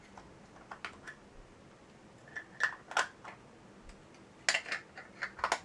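Plastic lens caps clicking and scraping as they are handled and twisted onto a Canon EF 50mm f/1.4 USM lens: a few scattered clicks, then a quick run of clicks near the end.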